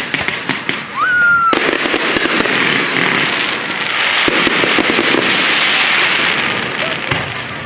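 Aerial fireworks bursting: a few sharp bangs and a brief rising whistle, then from about a second and a half in a dense, loud run of crackling from glitter stars, easing off near the end.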